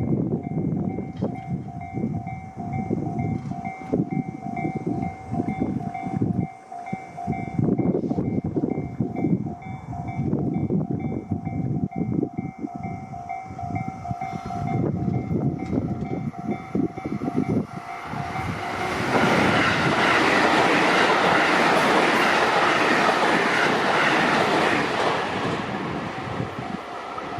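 Japanese level-crossing warning bell ringing with a rapid, steady two-tone clang while a JR Tokaido Main Line train passes over the crossing with rhythmic wheel clatter. About two-thirds of the way through, a much louder, even rushing train noise swells up and holds for several seconds, drowning out the bell, which is heard faintly again as it fades.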